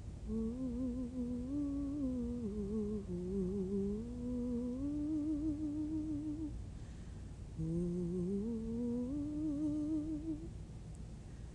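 A woman humming a slow, wordless, improvised line with a wavering vibrato, gliding down and back up in pitch. She hums two long phrases with a short breath-pause about seven seconds in.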